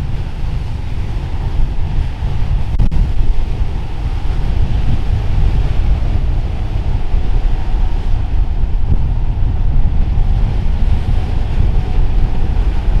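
Wind buffeting the microphone over rushing water: surf and the wake of a flybridge motor yacht running past at speed.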